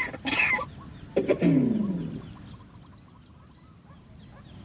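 White-breasted waterhen calling: a short harsh call at the start, then a loud call that falls in pitch about a second in, followed by faint, rapid high chirping.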